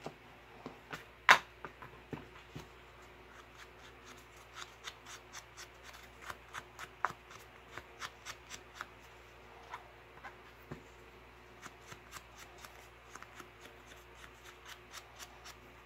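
Ink blending tool dabbed and rubbed against the edges of small paper squares: a run of soft, quick, irregular taps and scuffs, with one sharper knock about a second in.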